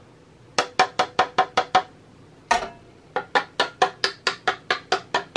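Rapid light taps on a mold full of tempered dark chocolate, about five a second, knocking the air bubbles out. There is a run of about eight taps, one heavier knock about halfway, then a longer run of about a dozen.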